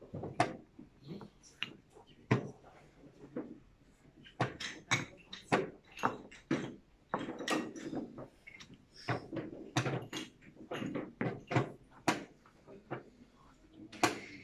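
Chess pieces clacked down on wooden boards and digital chess clock buttons slapped in quick succession during blitz play: many sharp, irregular knocks, several a second.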